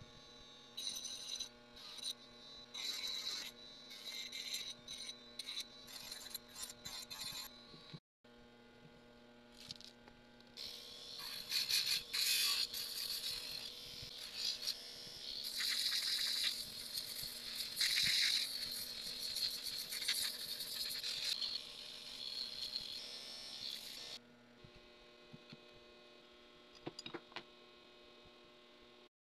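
Metal parts clinking, rattling and scraping as they are handled and set down on a cutting mat, with a longer stretch of scraping in the middle, over a faint steady hum.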